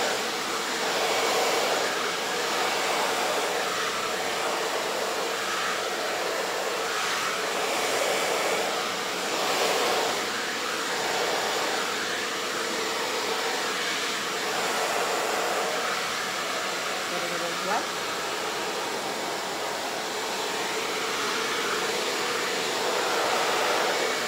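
Hair dryer fitted with a diffuser blowing steadily on curly hair, its level swelling and dipping slightly as it is moved around the head.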